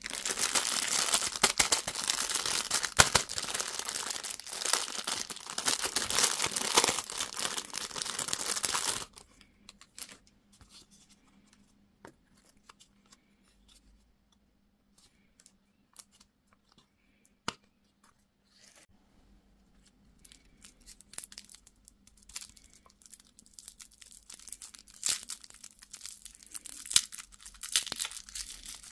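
Food packaging crinkling and tearing close to the microphone for about nine seconds, then a few scattered faint clicks, with crinkling starting up again and building near the end.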